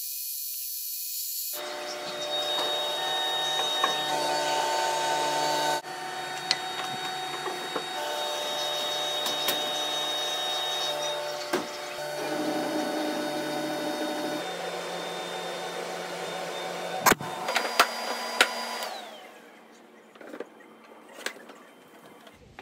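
Laser engraver running while it burns a logo into plywood: a steady machine hum with several held tones that shift at a few cuts. A few sharp knocks come near the end, and then the running noise falls away.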